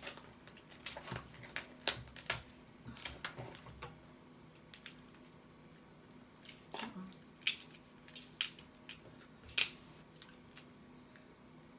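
Close-up mouth smacking and chewing while eating Dungeness crab and lobster: irregular sharp clicks and cracks, sometimes several a second, with short pauses between.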